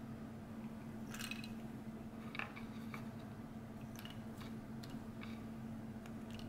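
Soft handling of food on a wooden cutting board, then light clicks of cashews dropped one by one into a small ceramic dish, over a steady low hum.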